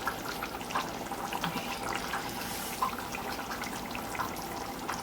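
Thick vadacurry bubbling on the stove, with small irregular pops and plops as it boils.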